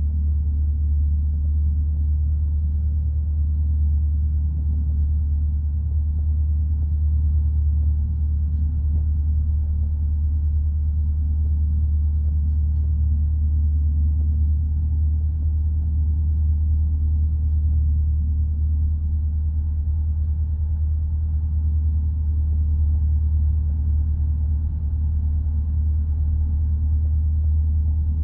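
Steady drone of a single-engine piston light aircraft's engine and propeller heard inside the cabin, holding a constant power setting on the downwind leg of the circuit. The sound is a deep, even hum with no change in pitch.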